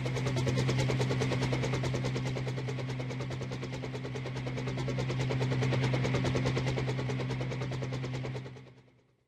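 Double Horse 9053 R/C helicopter's electric motors and coaxial rotors running, with a rapid fluttering chop over a steady hum, then winding down and stopping near the end.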